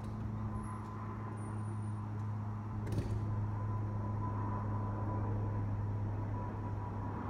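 Steady low droning hum with a thin steady tone above it, and a single click about three seconds in.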